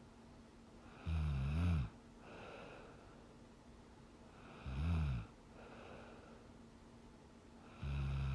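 A young woman snoring in her sleep: three low snores about three and a half seconds apart, each under a second long, with softer, noisier breaths out in between.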